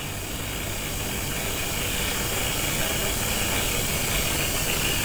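Steady hiss and low hum of background noise on a home security camera's recording of a child's bedroom, growing slightly louder.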